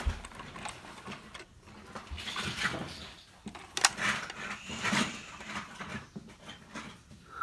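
Plastic LEGO Duplo toys being handled during play: a few sharp clicks and short rubbing, scraping noises.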